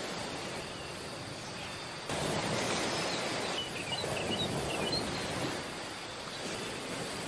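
Beach ambience: steady ocean surf, louder from about two seconds in, with a few short bird chirps around the middle.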